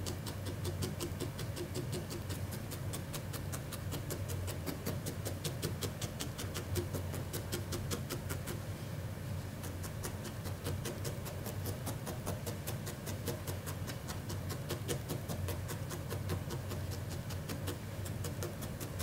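Felting needle stabbing repeatedly into wool, a quick, even run of soft pokes about five a second, with a short pause about nine seconds in. A steady low hum runs underneath.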